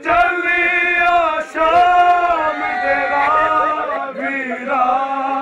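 Men's voices chanting a nauha, an Urdu lament for Imam Hussain, in long, drawn-out held notes that break off every second or so.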